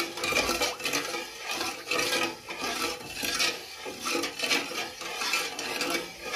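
A metal spoon stirring sugar into water in a metal pot: rhythmic sloshing and scraping against the pot, about two strokes a second, as the sugar dissolves.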